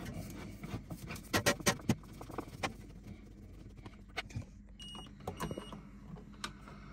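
A small screwdriver clicking and scraping on fridge mounting screws and their plastic screw covers: a scatter of short clicks and taps, over a low steady hum.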